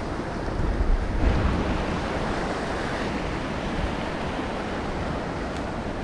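Sea surf washing and breaking against a rock ledge, a steady rushing noise, with wind rumbling on the microphone.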